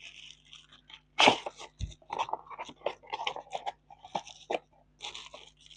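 Unboxing handling: a cardboard box and the plastic pouch inside it rustling and crinkling in short irregular crackles, with a sharper knock about a second in.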